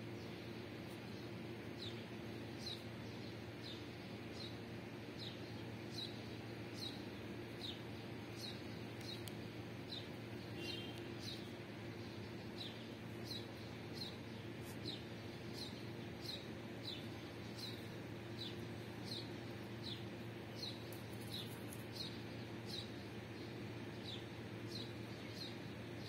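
Chicken chicks peeping: a steady series of short, high, falling peeps, roughly one every two-thirds of a second.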